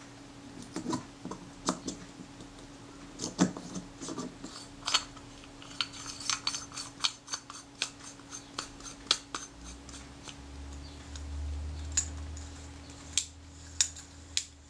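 Small metal lens parts being handled and fitted together: many light, irregular clicks and taps of metal rings and barrel against each other. A faint steady hum runs underneath, and a low rumble comes about two-thirds of the way through.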